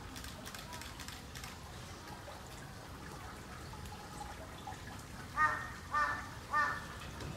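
A crow cawing three times in quick succession, about half a second apart, near the end. Under it runs a faint, steady background noise.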